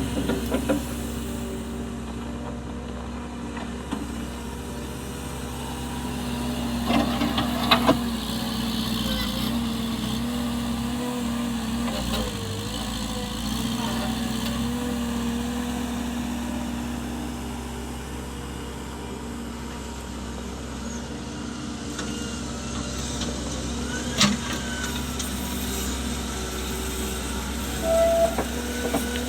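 Vehicle engine running steadily, with a few short knocks and clanks about a quarter of the way in and again near the end.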